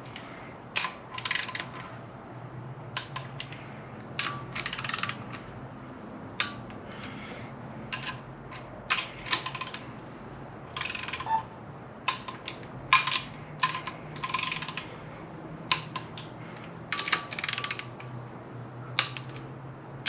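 Ratchet wrench tightening the oil pan bolts of a 1JZ-GTE engine: short runs of quick ratcheting clicks, broken by single sharp clicks, repeated bolt after bolt.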